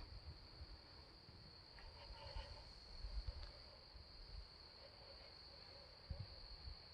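Night insects calling in a steady, unbroken high-pitched chorus, faint. A few soft low thumps come about two to three seconds in and again near the end.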